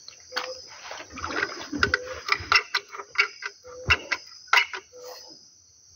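Irregular clicks and knocks from a caulking gun being worked and handled against a wooden canoe while its seams are sealed, over a steady high chirring of insects.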